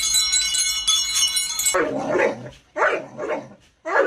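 Bright, chime-like ringing tones stop short about two seconds in. A dog then makes three short, drawn-out calls that bend in pitch.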